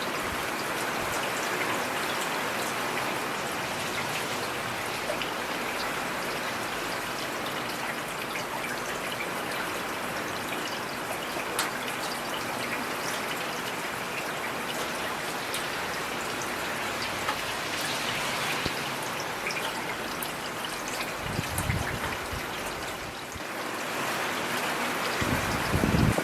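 Heavy rain falling steadily: a dense, even hiss of drops with scattered sharper ticks. Two short low rumbles come near the end.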